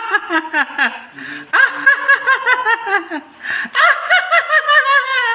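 A man laughing heartily in quick pulses, in about three bouts, each trailing down in pitch.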